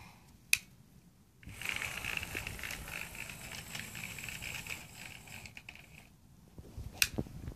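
Bachmann model steam locomotive running along plastic track: its small electric motor gives a steady high whine over a rattling running noise that starts about a second and a half in and fades away near six seconds. There is a sharp click just before it starts and another near the end.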